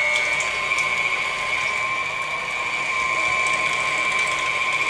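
Stand mixer's motor running at medium speed, driving a meat-grinder attachment as it grinds chunks of chuck roast; a steady high whine with no change in pitch.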